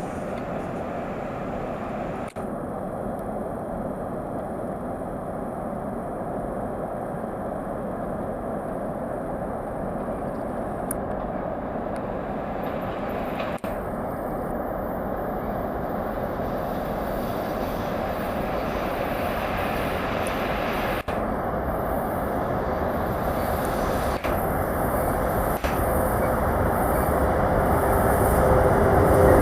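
VL80T electric locomotive hauling a freight train approaching, a steady rumble growing gradually louder.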